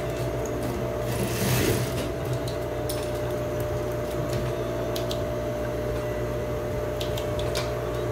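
Electric sewing machine running steadily with an even motor hum, with a brief hiss about a second and a half in and a few light clicks later on.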